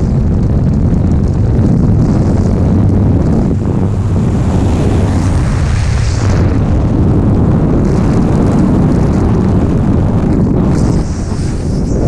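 Freefall airflow rushing over the camera's microphone: steady, loud wind noise heaviest in the low range, easing slightly near the end.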